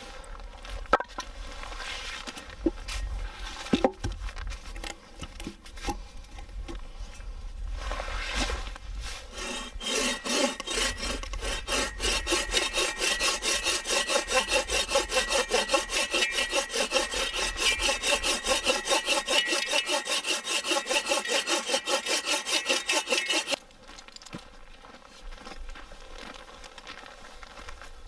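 Hand saw cutting through wood with quick, even back-and-forth strokes for about thirteen seconds, stopping suddenly. Before the sawing there is irregular rubbing and knocking of wood being handled.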